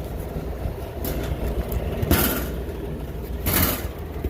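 Walk-in freezer's condensing-unit compressor running with a steady low hum. Two brief scuffing noises about a second and a half apart, near the middle and toward the end.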